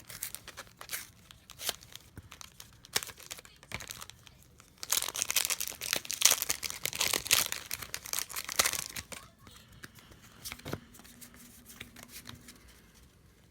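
Foil Pokémon booster pack being torn open and crinkled. Light rustles come first, a dense burst of tearing and crinkling runs from about five to nine seconds in, and sparse handling sounds follow.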